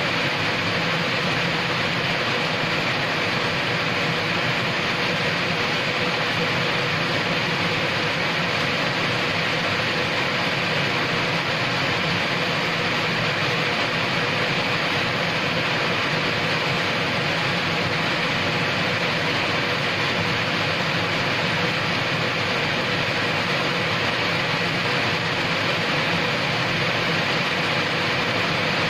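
Steady rain falling on wet brick paving, a continuous even hiss with no separate drips or breaks.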